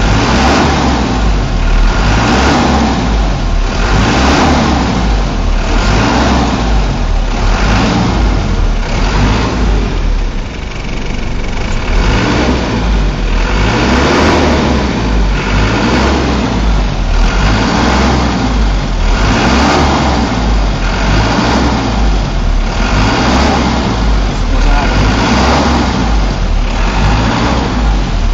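Truck engine revved up and down over and over as the accelerator pedal is pressed and released, its pitch rising and falling about once a second, with a short lull about ten seconds in.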